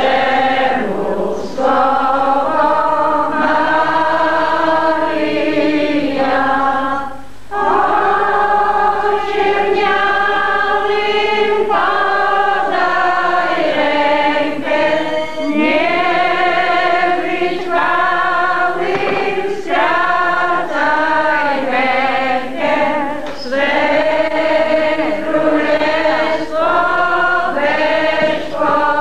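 Congregation, mostly women's voices, singing a hymn together in long held notes, with a short pause between phrases about seven seconds in.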